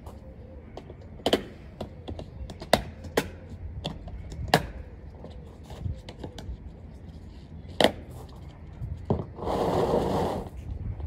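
Scattered sharp clicks and knocks of objects being handled, then a rustle lasting about a second near the end.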